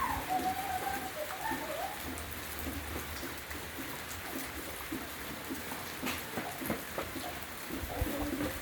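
Heavy rain falling steadily, with many small sharp drop ticks hitting a surface.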